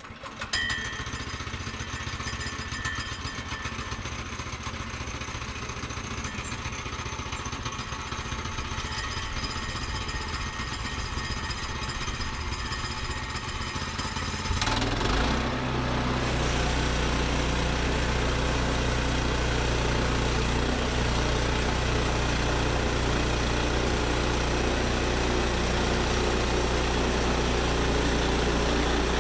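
Woodland Mills HM122 band sawmill's gas engine starting up and running steadily, then changing to a louder, deeper running about 15 seconds in.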